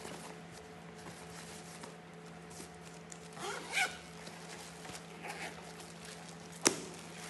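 Metal zipper on a leather backpack being pulled along a compartment, a short run about halfway through, with handling noise and one sharp click near the end, over a faint steady hum.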